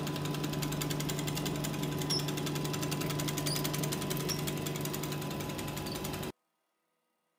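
Selmi chocolate tempering machine and enrober running: a steady machine hum with a fast, even rattling pulse. It cuts off suddenly about six seconds in.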